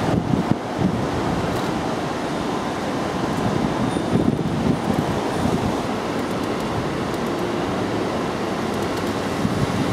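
Wind buffeting the microphone: a steady low noise that swells slightly now and then.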